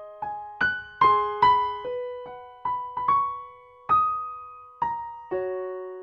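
Solo piano background music: a slow melody of single struck notes, each ringing and fading, ending on a low note that is held and rings out near the end.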